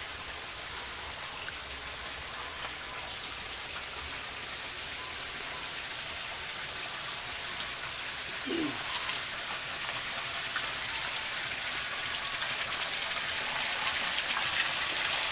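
A steady hiss of noise that slowly grows louder, with faint ticks, and one short low falling call about eight and a half seconds in.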